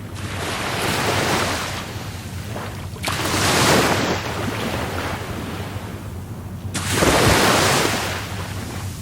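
Rough Caribbean Sea surf: waves breaking in three surges, one near the start, a louder one about three seconds in, and another about seven seconds in, each washing away before the next.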